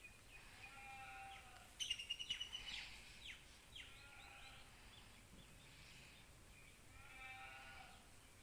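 Faint bird calls: a quick chirping trill about two seconds in, a few short falling notes, and brief drawn-out pulsing calls on either side.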